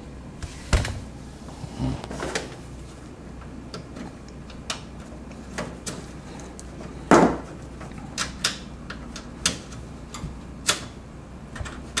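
Irregular clicks and knocks of computer cables and plug connectors being handled at the back of a PC tower, with a louder knock about seven seconds in.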